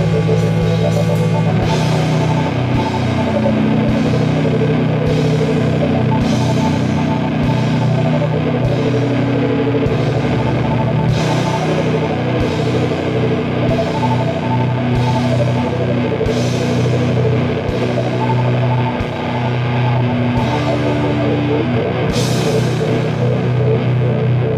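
Slow, heavy doom metal: loud sustained chords low in pitch over a drum kit, with a cymbal crash about every second and a quarter.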